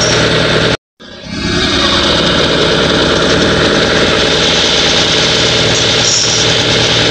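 A vehicle engine idling steadily and loudly. The sound cuts out completely for a moment just under a second in, then fades back up.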